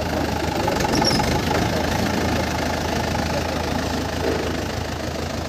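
A vehicle engine running steadily at an even pace.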